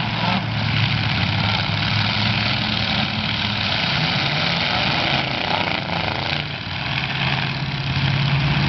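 Several demolition derby cars' engines running together, a steady low drone, as the cars push against each other and spin their wheels in the mud.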